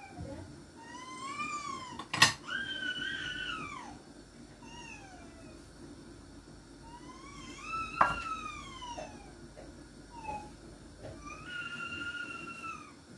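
A cat meowing over and over: about five drawn-out meows that rise and fall in pitch. There are two sharp knocks, one about two seconds in and one about eight seconds in, and these are the loudest sounds.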